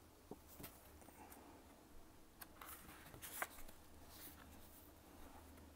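Faint rustling and a few light clicks and taps of a paperback picture book being lifted and its page turned, with one sharper tap a little past halfway.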